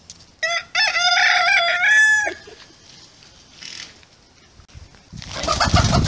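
Silkie rooster crowing once, a single cock-a-doodle-doo lasting about two seconds. From about five seconds in, a loud, irregular flurry of chickens flapping their wings.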